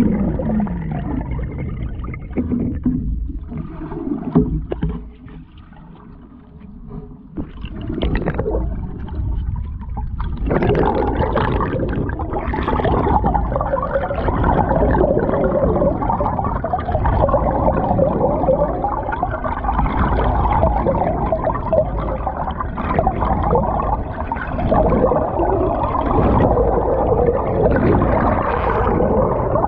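Canoe paddle strokes heard from under the water: muffled gurgling and rushing water with bubbles as the blade enters and pulls. It dips quieter for a couple of seconds early on, then runs steady and dense from about ten seconds in.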